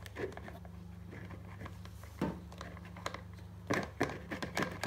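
Plastic sieve full of flour shaken and knocked against a plastic mixing bowl while sifting: scattered light taps and clicks, one about two seconds in and a quick cluster near the end, over a faint steady low hum.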